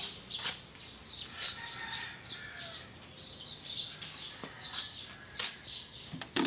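Outdoor ambience: a steady high insect drone with scattered short bird chirps, and a few brief held bird notes about one to three seconds in.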